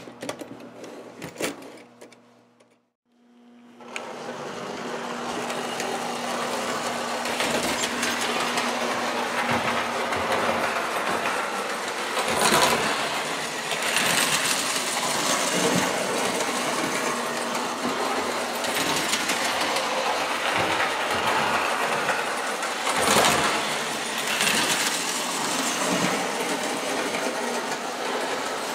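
Lionel toy train locomotive's electric motor and gears running as it pulls tin-plate cars around the track. It starts up a few seconds in as the voltage is raised, then runs steadily with periodic louder swells. It has a little bit of a grind in the gears.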